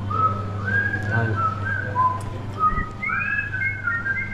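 A person whistling a tune, a string of held notes that step up and down and climb higher in the second half, over a steady low hum.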